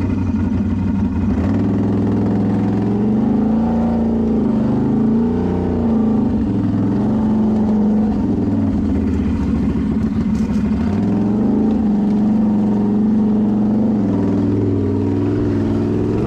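Sport quad ATV engine running close up, its revs rising and falling under throttle a few times, about four seconds in and again near twelve seconds.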